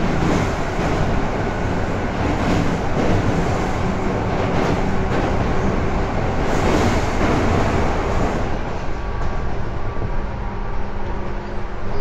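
Tobu 10030 series electric commuter train running, heard from inside the car over its line breaker: a steady rumble of wheels on rail with faint motor and field-chopper tones. About eight and a half seconds in, the highest hiss drops away and the running noise eases slightly.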